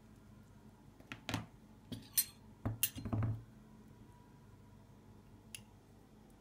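A knife clinking and knocking against a dish while the flesh of a lemon is dug out. Several sharp clinks come in three quick groups about one to three and a half seconds in, then one light tick near the end.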